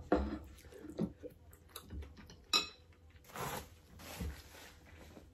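Chopsticks and a ceramic plate knocking and clinking a few separate times as the emptied plate is handled and set down, followed about three seconds in by a paper tissue rustling as it wipes the mouth.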